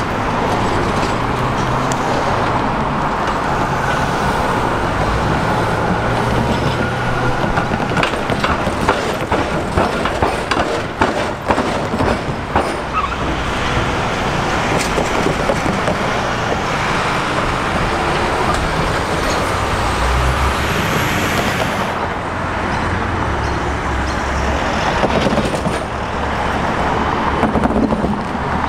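Vehicles running close by: a loud steady rumble, with a run of sharp clicks and knocks around the middle and a faint rising whine later on.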